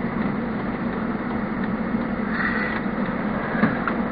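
Steady road and engine noise inside a moving car, an even rumble with a constant low hum.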